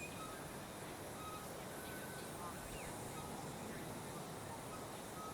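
Birds calling in short, high whistled notes, scattered through a steady outdoor background hiss.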